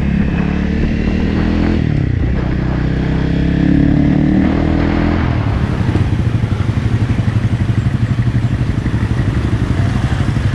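Dirt bike engine heard from the rider's seat. Its note dips about two seconds in and climbs again. After about five and a half seconds it settles to a low, even pulsing as the bike slows to a crawl in traffic.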